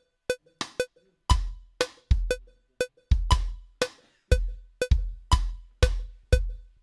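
Groove Agent SE drum sampler in Cubase playing a looped bass-drum (kick) pattern at 120 BPM alongside short, high metronome-like clicks. From about a second in the kicks join, and they come more densely as new C1 kick notes are drawn into the loop, ending at about two a second.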